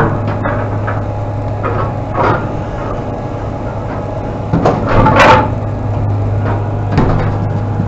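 A vehicle engine idling with a steady low hum, with a few scattered knocks and rattles about two seconds in and again around five seconds.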